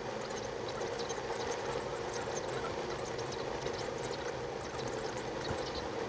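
Steady road and tyre noise inside a car cruising on a highway at about 65–70 mph, an even rushing with no changes.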